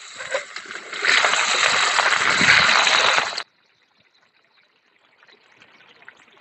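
Prawn heads sizzling in hot oil, growing louder about a second in and cutting off suddenly after about three and a half seconds, then a faint sizzle.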